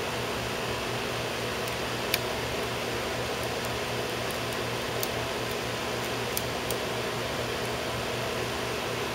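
Steady fan-like hum throughout, with a scattering of small, sharp clicks from a screwdriver and screws as the screws holding a laptop's LCD panel are put back in.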